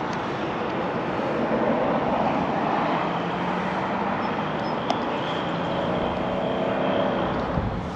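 Steady outdoor engine noise from passing traffic, swelling a few seconds in with a faint hum that drops slightly in pitch near the end, and one light click about five seconds in.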